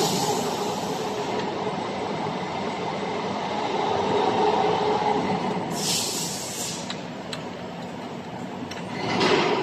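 Spiral duct forming machine running, rolling and seaming galvanized steel strip into round duct, with a steady mechanical drone that carries a hum. A brief hiss comes about six seconds in, and the sound swells again near the end.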